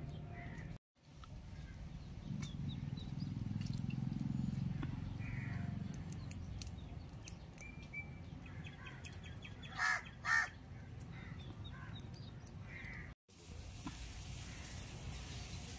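A crow caws twice, loud and harsh, about ten seconds in, half a second apart, with a few faint bird chirps around it. Under it runs a low steady rumble. The sound cuts out briefly twice.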